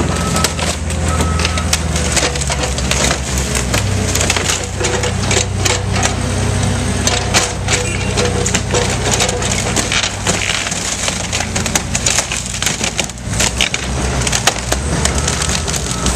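Demolition equipment at work: a diesel engine running steadily under many sharp cracks and snaps as wooden framing and siding are crushed and torn apart.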